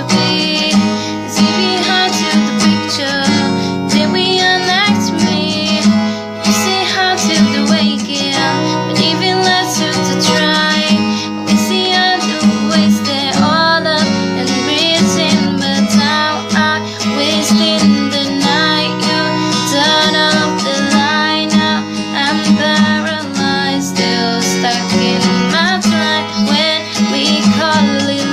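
Music: strummed acoustic guitar with a woman singing over it.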